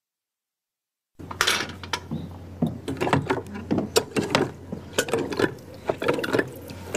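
Cast-iron hand pump being worked, its handle and works clicking and knocking in an irregular run that starts about a second in, over a steady low hum.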